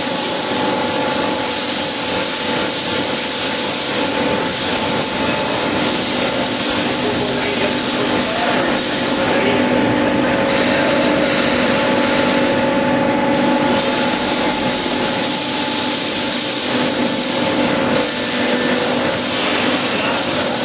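Zopf ZB80 CNC pipe bending machine running: a steady machine hum made of several fixed tones under a loud hiss. The hiss thins out for a few seconds about ten seconds in.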